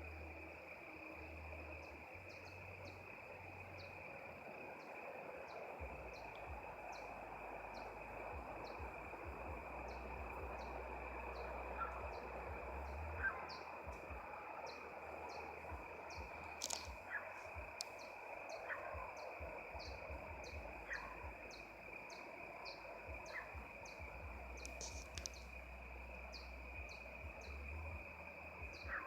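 Faint outdoor ambience: a steady high-pitched drone with short chirps repeating about once or twice a second, like insects and birds, over a low rumble. There are a couple of sharp clicks near the middle and later on.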